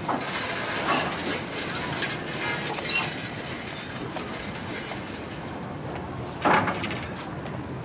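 Steady mechanical clatter with scattered clicks, and one louder knock about six and a half seconds in.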